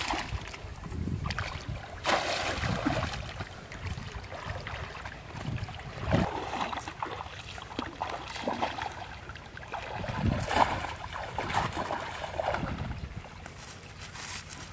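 Shallow stream water splashing and sloshing in irregular bursts as men wade through it and plunge conical bamboo fish traps into the streambed.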